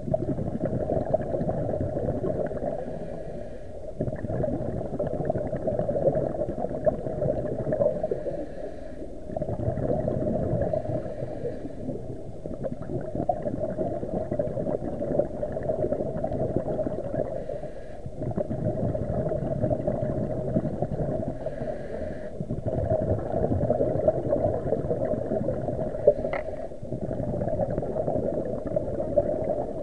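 Muffled underwater sound heard through a camera housing: a low rumble with gurgling that swells and eases every few seconds, and one sharp click near the end.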